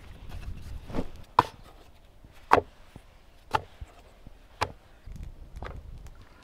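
A blade chopping on wood: six sharp strokes about a second apart, the loudest a little past halfway.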